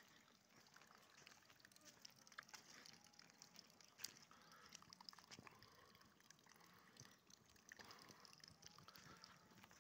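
Near silence: faint outdoor background with scattered light clicks.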